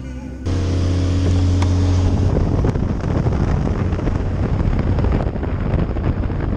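A car engine running with heavy wind noise on the microphone, starting abruptly about half a second in: a steady engine hum first, then mostly a loud rushing of wind.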